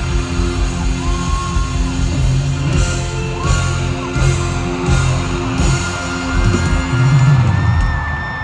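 A live rock band playing, with electric guitar, steady held bass notes and several cymbal crashes in the middle, and a long high note held near the end.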